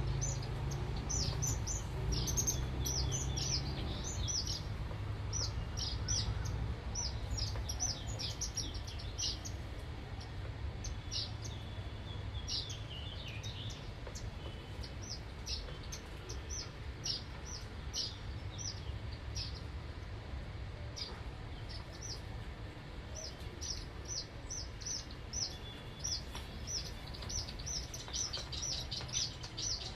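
Small birds chirping: many short, high chirps in quick runs, thinning out in the middle and busier again near the end, over a low steady background rumble.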